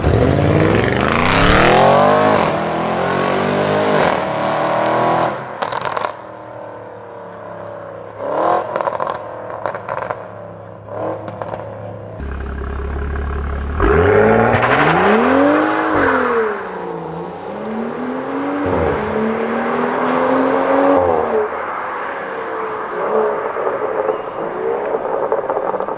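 Sports car engines accelerating hard past, two cars one after the other. Each engine's pitch climbs and drops back at every upshift, and between them come several short sharp cracks.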